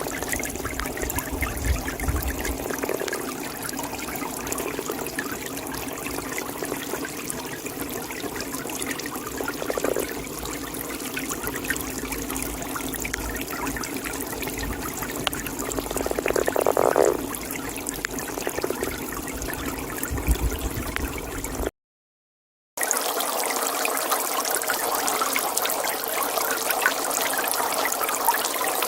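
Pond water trickling steadily while a toad calls a few times, the longest and loudest call coming about two-thirds of the way through. The sound cuts out completely for about a second near the end, then the water carries on.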